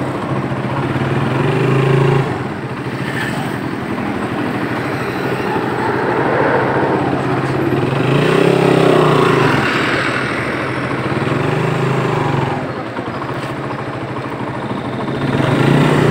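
Small motorcycle engine running under way, its pitch rising and falling several times with the throttle, over a steady rush of road and wind noise.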